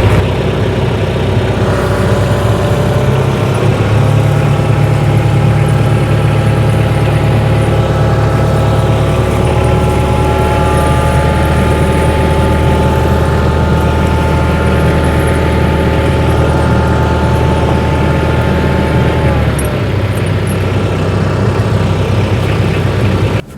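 Tractor engine running steadily with a low hum while the tractor creeps forward to wrap snow chains onto the tires. The engine eases off about three-quarters of the way through and the sound stops abruptly near the end.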